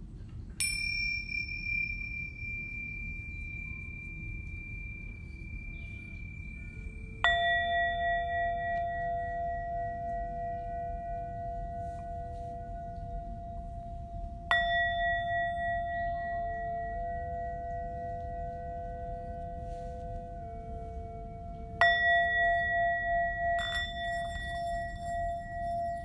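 Struck metal sound-healing instrument rung four times, about seven seconds apart: the first strike a single high ringing tone, the next three a lower ring with several clear pitches that waver slowly as they fade. A steady low rumble sits beneath the strikes throughout.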